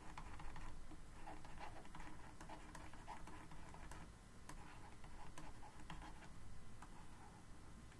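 Faint scratching and light taps of a stylus writing on a graphics tablet.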